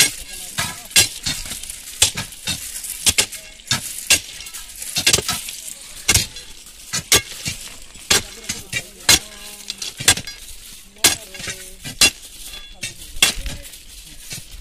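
Steel crowbars jabbed into stone track ballast beside a concrete sleeper, a run of sharp stony clinks and crunches about two a second, irregular: manual ballast packing to firm up support under the sleeper.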